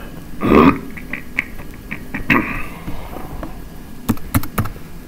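Key clicks on a computer keyboard as a terminal command is typed: scattered soft taps, then a quick run of sharper clicks about four seconds in. Two short muffled noises come in the first half, the first of them the loudest sound here.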